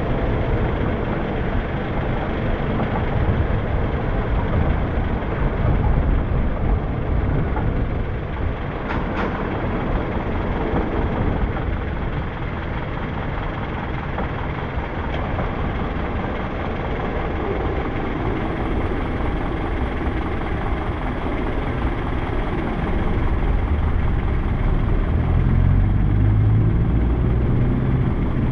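Steady road and engine rumble of a vehicle driving along a town street, with traffic around it. Near the end a deeper engine hum grows louder as it pulls up close behind a minibus.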